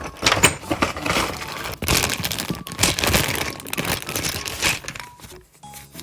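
Toy packaging being handled and opened, crinkling and rustling in quick, irregular bursts, which fade out about five seconds in.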